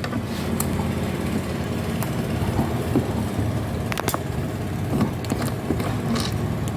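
Steady low engine-like rumble, with scattered sharp clicks and taps of a portable speaker's plastic back cover being worked open.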